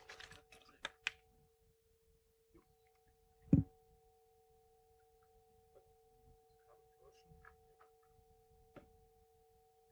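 A steady, faint electronic tone of two pitches holding through the hall's sound system, with rustling and clicks in the first second and one loud thump about three and a half seconds in.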